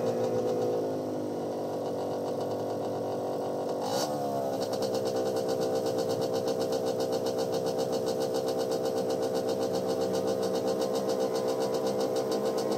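Car engine running out of sight, its pitch falling in the first second, then holding a steady tone with an even pulse. A brief sharp rise and fall in pitch comes about four seconds in.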